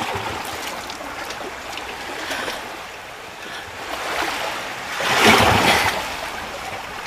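Flowing river water and splashing from a film soundtrack as people wade through a river, with a louder rush of splashing about five seconds in.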